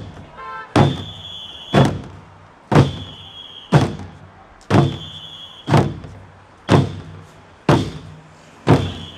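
A drum beaten in a steady marching beat, about one stroke a second. Every other stroke carries a short high ringing tone.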